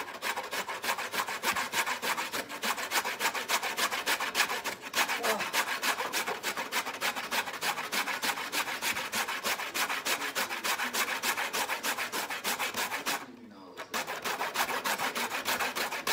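Boiled horseradish root being grated fast on a stainless steel box grater: a quick, even rasping of back-and-forth strokes, with one short pause near the end.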